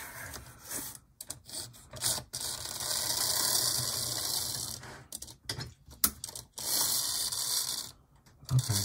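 HO-scale Lifelike F7A model locomotive's pancake motor and gears running in stops and starts on the track: two spells of running, from about two seconds in to about five, and again near the end, with short cut-outs and clicks between. It runs only while the chassis is pressed down, a sign of poor electrical pickup between the wheels and a dirty track.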